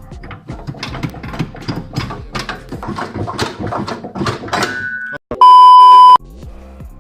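Rapid, irregular metallic clicking and rattling of tools at work for about five seconds, then a loud steady electronic beep for under a second.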